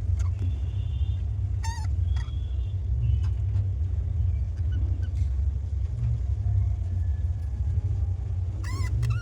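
Budgerigars chirping in short, wavering calls and thin whistles a few times, over a steady low rumble that is the loudest thing throughout.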